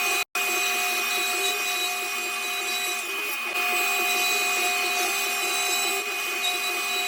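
A woodworking power tool running steadily through wood, with a steady whine over broad noise, under background music. The sound cuts out for a split second near the start.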